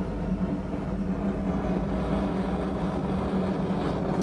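Forge running, giving a steady low hum over a faint rushing noise.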